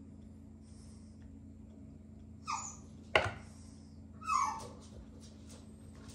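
Basenji puppy whining for food, two short cries that fall in pitch, about two seconds apart. A sharp knock comes between them.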